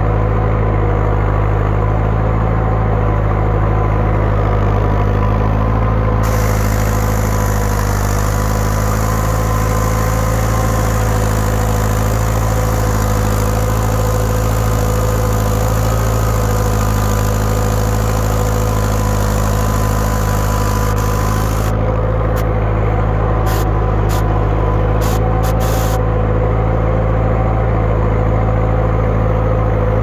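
Tractor engine running steadily at constant speed under the load of ploughing heavy ground, a deep even hum with no change in pitch. The recording is rough and distorted.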